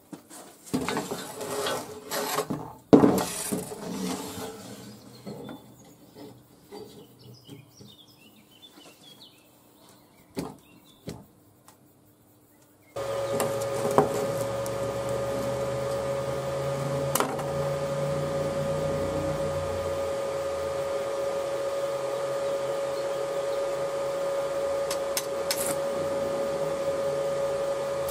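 Steel flat-bar frame pieces being handled on a workbench: metal knocks and scraping, loudest about three seconds in, thinning to occasional taps. About 13 seconds in the sound changes to a steady machine hum with a mid-pitched whine, with a few light taps of a steel square set against the frame corner.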